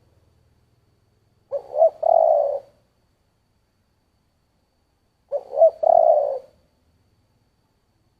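Spotted dove cooing in the deep 'thổ' voice type: two coo phrases about four seconds apart, each a couple of quick short notes running into a longer held note.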